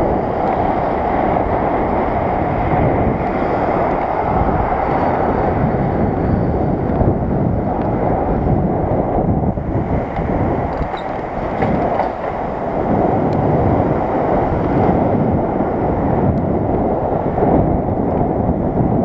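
Steady wind and road noise on a bicycle-mounted camera microphone while riding along an asphalt street: a dense, even rushing with no distinct tones.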